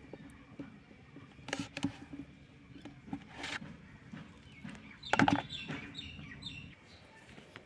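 Grapes being handled in a red plastic colander: a few scattered soft knocks and rattles, the loudest about five seconds in, followed by a run of short high bird calls.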